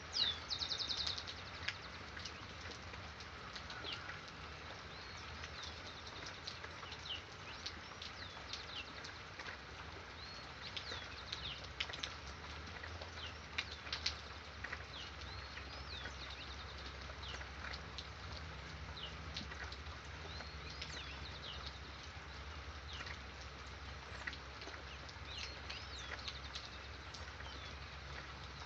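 Several birds chirping and whistling in short calls throughout, with a rapid trill at the start, over a steady hiss of rain.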